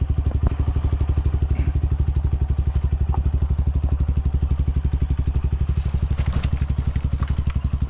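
Dirt bike engines running steadily at low speed, an even rapid pulsing with no revving, as the bikes creep along a rough trail.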